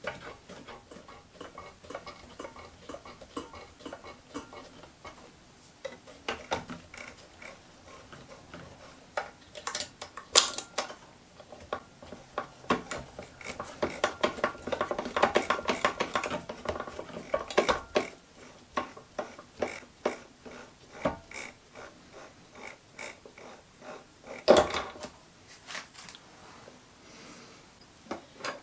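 Irregular clinks, clicks and knocks of metal on metal as hands handle the chuck and workholding of a small bench lathe, busiest in the middle, with a couple of sharper knocks.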